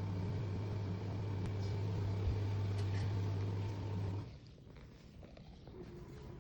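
A steady low machine hum that cuts off abruptly about four seconds in, leaving a quiet background.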